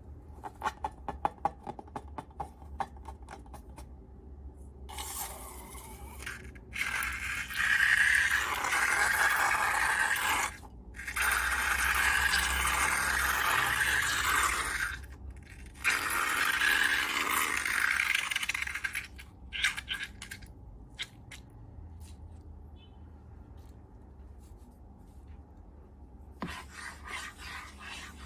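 Scraping and rubbing in three long passages of a few seconds each, after a run of quick small clicks and before quieter scattered clicks.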